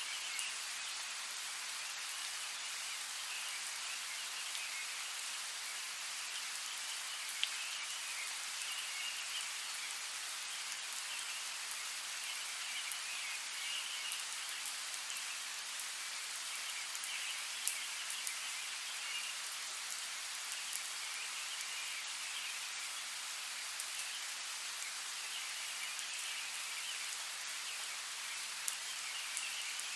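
Steady rain falling, an even hiss with now and then a single louder drop ticking sharply, about three times.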